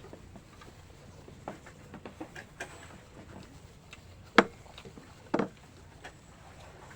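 Scattered light clicks and knocks over a low steady rumble, with two louder sharp knocks about a second apart a little past the middle.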